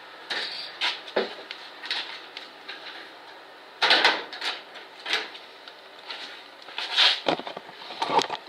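Irregular knocks and clatters of objects being handled, with louder noisy bursts about four seconds and seven seconds in.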